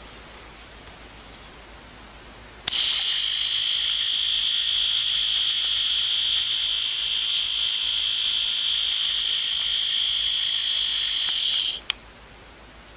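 Light-up snowman spinner wand switched on with a click about three seconds in: its small battery motor spins the globe with a steady high-pitched whirr for about nine seconds, then stops, with another click near the end.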